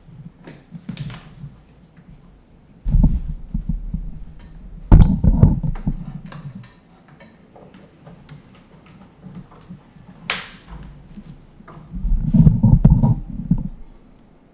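Handling noises from unplugging a power supply cord and plugging it into an embroidery machine: dull bumps and rustling in three spells, with a sharp click about ten seconds in.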